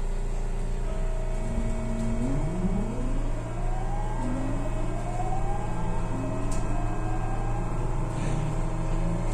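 JR West 207 series electric train's inverter and traction motors whining in tones that rise in pitch step by step as the train accelerates, over a steady low hum.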